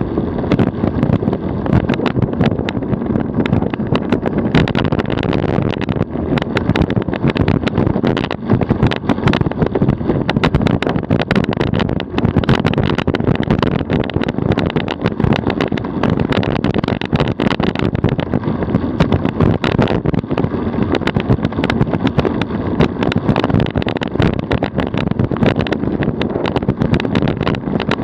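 DF velomobile rolling on tarmac at about 40 km/h: a steady rumble of road noise, with many small clicks and rattles all through.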